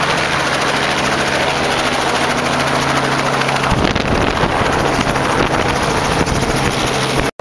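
Small two-bladed helicopter running loud and steady on the helipad just after touching down, its main rotor turning with an even beat. A low hum in the sound stops about four seconds in.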